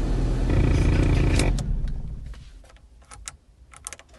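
An Audi TT's low rumble fades out about two seconds in. A scattering of sharp clicks and pops follows, the popping noise the car is making.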